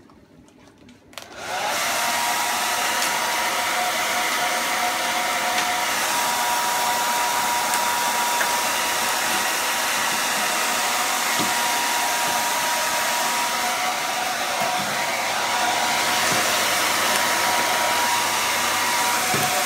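Hand-held hair dryer switched on about a second and a half in, then running steadily with a whine, blowing hot air to soften the glue under a vinyl cupboard-door covering so it can be peeled off.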